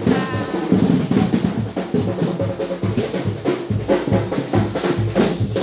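Loud drumming on large parade drums (tambol), a dense, continuous run of beats.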